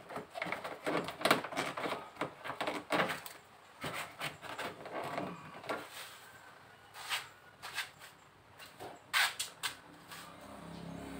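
Foil-faced heat insulation sheet crinkling and rustling as it is handled and pressed against the underside of a car bonnet, with irregular sharp clicks and taps.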